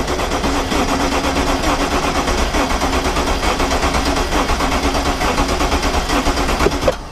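BMW N63 twin-turbo V8 turned over on its starter motor without firing, a steady rapid chugging with a starter whine, stopping near the end. The engine is being cranked for a compression test of cylinder 6, which builds to about 195 on the gauge, a healthy reading.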